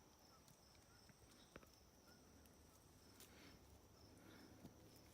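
Near silence: faint, high, steady insect chirring, with a few soft clicks.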